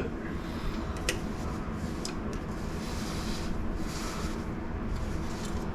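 Faint handling noises: rubbing and scraping with a few light clicks, over a low steady background rumble.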